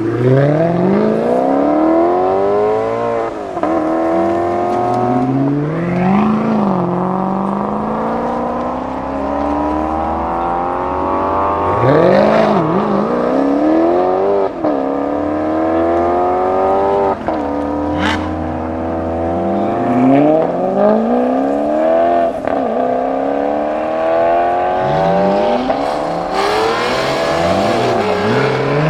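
Supercar engines accelerating hard one after another, each revving up steeply in pitch, dropping at a gear change and climbing again as the cars pull away. A sharp crack cuts through the revving about eighteen seconds in.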